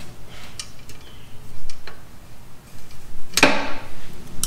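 Hand tools and clutch-cable parts being handled under a car: a few light clicks, then a sharp clack about three and a half seconds in and another near the end.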